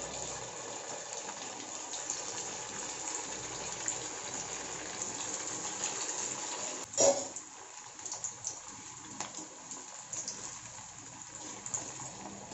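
Maggi noodle balls deep-frying in hot oil in an iron kadai: a steady, even sizzling hiss. About seven seconds in there is a short louder burst, after which the sizzle is a little quieter.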